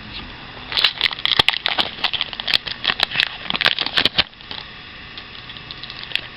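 Foil Pokémon booster pack wrapper crinkling and rustling as it is opened by hand, a dense run of crackles that stops about four seconds in, leaving a steady low hiss.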